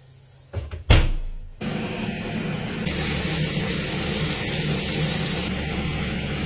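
A few knocks and one loud clunk about a second in, then a steady sizzle of steak searing in foaming butter in a cast-iron pan, carrying on as red onions fry.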